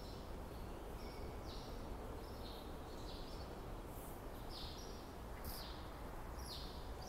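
Small birds chirping in a string of short high calls, about one or two a second, over a steady low rumble of station ambience.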